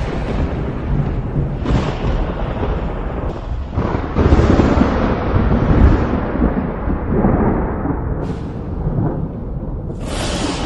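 Thunder rumbling and rolling, with a sharp crack about two seconds in, a louder roll in the middle and another crack near the end.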